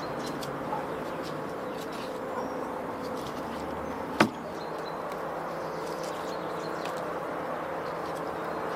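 Steady outdoor background noise with faint high chirps, broken by one sharp click about four seconds in.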